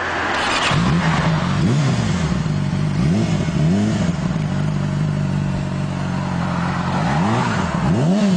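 Motorcycle engine running, revved up and down over and over on a steady drone that sets in just under a second in.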